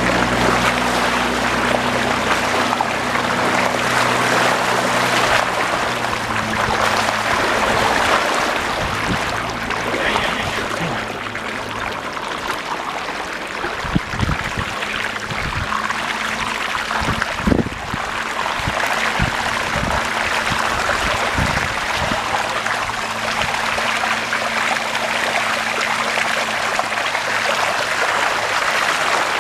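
Deep floodwater in a street flowing and splashing, a steady rushing noise. There is a low hum in the first few seconds and a few dull knocks around the middle.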